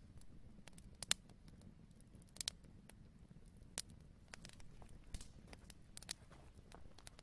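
Faint, irregular soft clicks and crackles, a few louder ones spaced a second or so apart, over a low steady hum.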